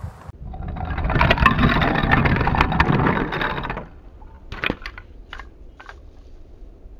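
Wooden toy trains rolling fast down a raised wooden track: a rattling clatter that builds for about three seconds and stops suddenly. A few light wooden clicks follow.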